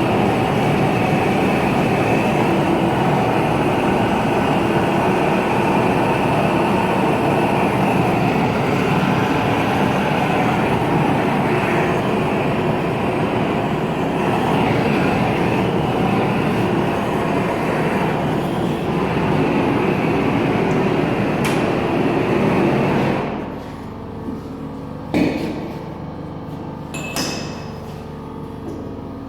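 Steady, loud workshop equipment noise that cuts off about 23 seconds in, leaving a low machine hum with a couple of sharp knocks near the end.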